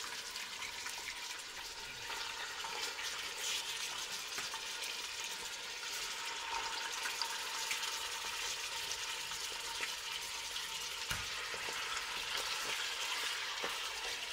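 Chicken pieces sizzling steadily in hot olive oil in a pot as they are sautéed to brown, with an occasional light knock.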